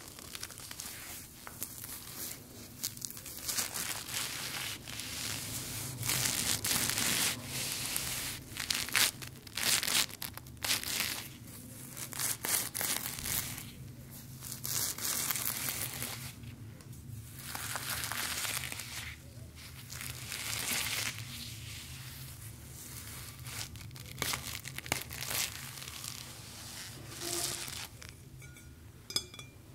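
Close-miked crinkling and crumpling of a crinkly material, coming in irregular bursts.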